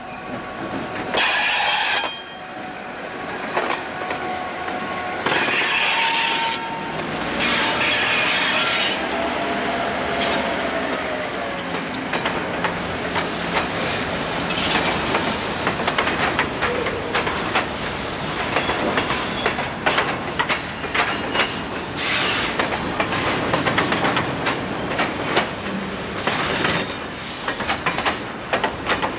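Conrail freight cars rolling past with a steady clickety-clack of wheels over rail joints. Several high-pitched bursts of wheel squeal in the first nine seconds.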